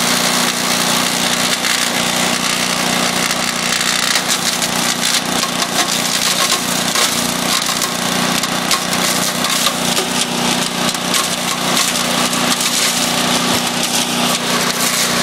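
Engine-driven wood chipper running steadily, with dense crackling and snapping as wood is chipped, thickest from about four seconds in.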